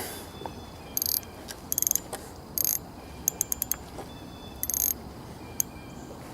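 Fishing reel ratcheting in several short, high buzzing bursts, with a quick run of separate clicks in the middle.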